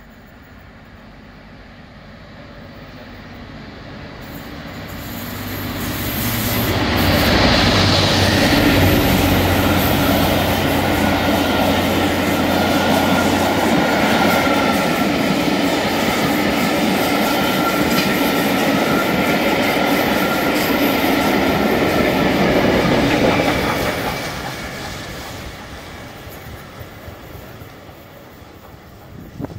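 LMS Black 5 two-cylinder 4-6-0 steam locomotive working hard up a gradient with a passenger train: it approaches, getting louder from about four seconds in, then the train rushes past loud and close, carriages rolling over the rails, before it fades away in the last few seconds.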